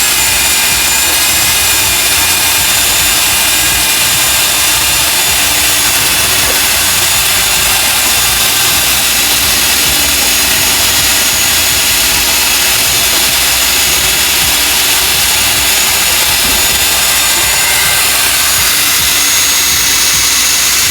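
Loud, steady machine whine over a rushing noise, with several fixed high tones that do not let up.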